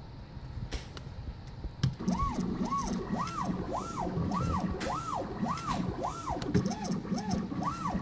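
Desktop CNC machine's stepper motors start up about two seconds in. They whine in a rise-and-fall of pitch with each short move, about two moves a second, over a low hum. Before that there are a few light clicks.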